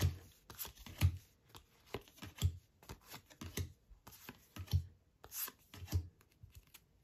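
Stack of glossy baseball trading cards being flipped through in the hand, each card slid off the front and tucked to the back. A soft card-on-card slide comes about every half second, some with a light thump.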